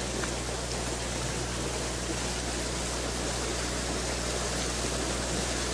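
Steady splashing and sloshing of a large herd of cattle wading through a shallow creek.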